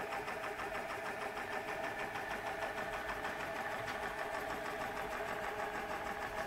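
Model Huxtable Stirling hot air engine running steadily on its gas burner, its brass piston and ball-bearing crankshaft turning the cast iron flywheel: a quiet, fast, even mechanical ticking with no change in speed.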